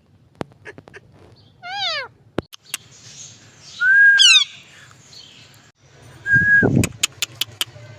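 Indian ring-necked parakeet calling: a short falling call, then two loud calls about four and six and a half seconds in, each a held note that drops away sharply, among a scatter of sharp clicks.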